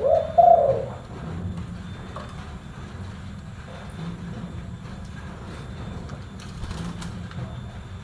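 Spotted dove cooing: one loud call at the very start, followed by softer, deep coos repeating every second or two.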